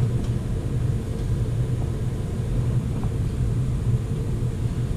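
Furnace running: a steady low hum and rumble, with a faint tick about three seconds in.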